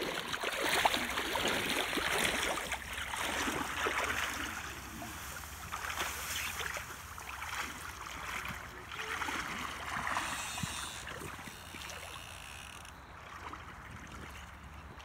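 Water splashing as a hooked Atlantic salmon thrashes at the surface, in repeated bouts that are loudest in the first few seconds.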